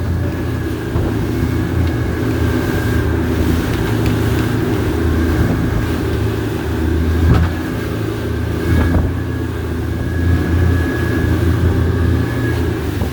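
Boat engine running steadily with a deep drone and a faint high whine over it. Two short knocks come a little past the middle.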